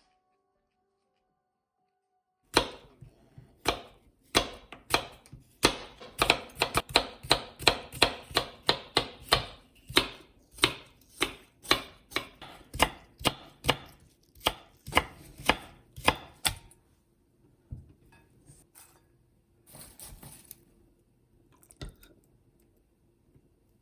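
Kitchen knife chopping on a cutting board in steady, quick strokes, about two to three a second, starting a couple of seconds in and stopping after about fourteen seconds. A few scattered knocks and a brief rustle follow.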